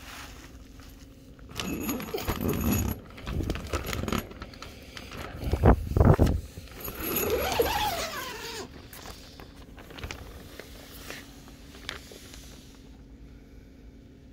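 Red tape being ripped off plastic sheeting: crinkling plastic and handling noise for several seconds, with a few heavy thuds about six seconds in and a short squealing peel just after. It settles to a faint low hum.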